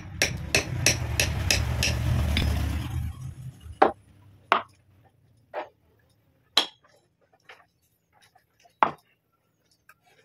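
Workshop tool sounds: a fast run of taps, about three a second, over a power tool running for about three seconds, which then stops. After it come five separate sharp knocks and clinks of tools or wood being handled.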